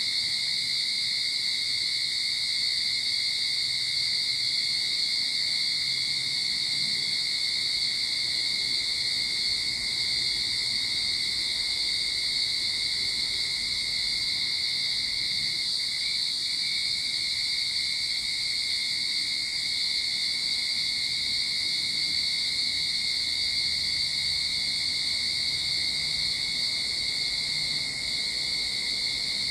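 Cicadas chorusing: a steady, high-pitched drone that holds without a break.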